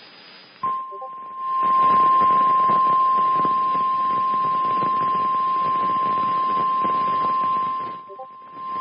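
NOAA Weather Radio 1050 Hz warning alarm tone: one steady high tone starting about half a second in and held throughout, over loud radio static that dips briefly near the end. The tone signals that a weather watch or warning message follows.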